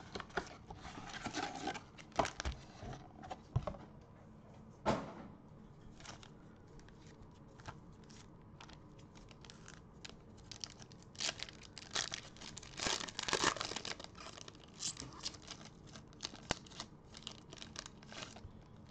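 Crinkly wrappers of Bowman baseball card packs rustling and tearing as the packs are lifted out of a cardboard box and ripped open. The sound comes as scattered small clicks and crinkles, busiest about two-thirds of the way through.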